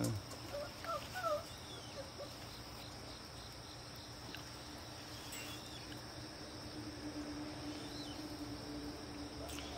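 A few short, faint rising squeaks from puppies in the first second or so, over a steady high chirring of crickets.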